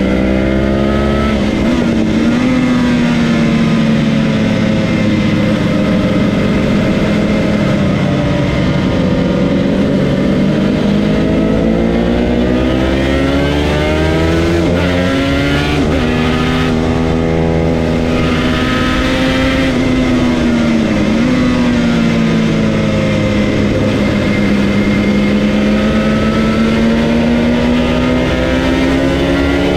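Yamaha TZR250 1KT two-stroke parallel-twin engine, heard from on board, running hard at high revs around a race circuit. Its note rises and falls through the corners, with a few brief sharp dips in pitch at the gear changes.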